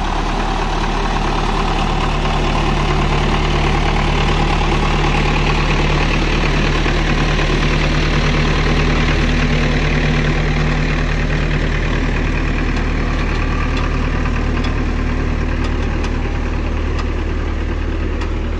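Diesel engine running steadily at constant speed, with an even low hum.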